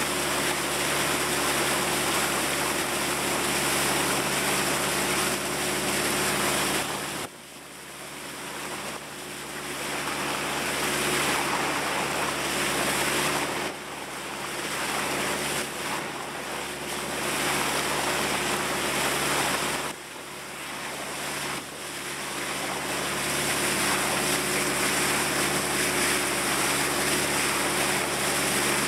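Steady engine hum of a riverboat under way, under a loud rush of water and wind. The rush dips suddenly about seven seconds in and again about twenty seconds in, then builds back.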